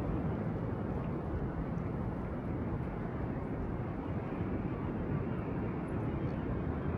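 Steady low rumbling outdoor noise of wind on the microphone and the sea swell, with no distinct events.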